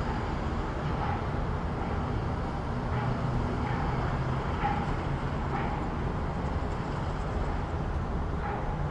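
City street ambience: a steady low rumble of road traffic, with faint short sounds poking above it now and then.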